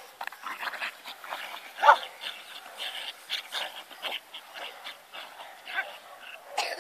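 Small dog yipping and barking in a rapid run of short calls while chasing a rugby ball, with one louder yip about two seconds in.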